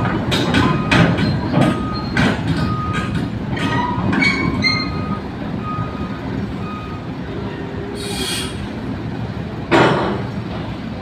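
Volvo crawler excavator reversing down a steel ship ramp: its engine rumbles steadily while the steel tracks clank and rattle in a quick uneven rhythm for the first half, and a travel alarm beeps repeatedly. A short hiss comes about 8 s in, and a single thump near the end.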